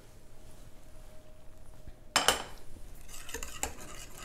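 A utensil clinks sharply against a mixing bowl about two seconds in, then irregular clicking and scraping of stirring in the bowl as spices and salt are mixed into the wet batter.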